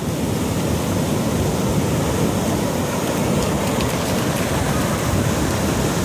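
Ocean surf breaking and washing up the beach as a steady, even rush of noise, with wind on the microphone.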